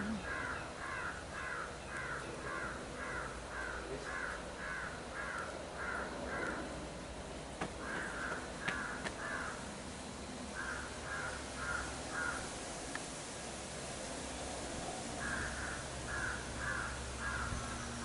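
A bird giving long series of harsh, evenly spaced calls, about three a second, in several bouts separated by short pauses.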